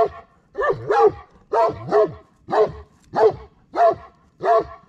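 Great Pyrenees barking over and over, deep barks about two a second, many in quick pairs. These are a livestock guardian dog's warning barks meant to deter predators.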